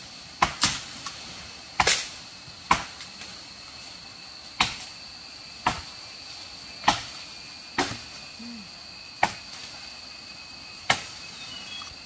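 Chopping with a blade into wood: about ten sharp strikes at uneven intervals, roughly one a second, over a steady high-pitched insect drone.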